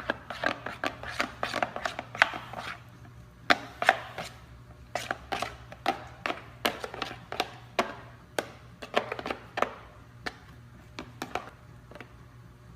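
A spoon stirring glue and shaving cream in a bowl, knocking and scraping against the bowl in quick, uneven clicks, with a short pause partway through and fewer strokes near the end.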